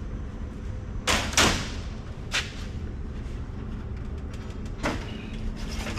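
Circuit boards being handled and slid in an electronics rack's card cage: a few short scraping slides, two close together about a second in, one near two and a half seconds, and another near the end, over a faint steady hum.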